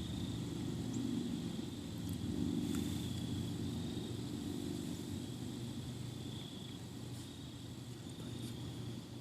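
Outdoor background: a steady low rumble, insects trilling on and off in a high thin tone, and a couple of faint clicks.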